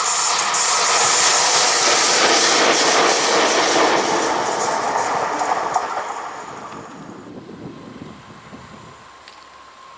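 Train passing on the track, its wheels clattering over the rails, then fading away after about six seconds.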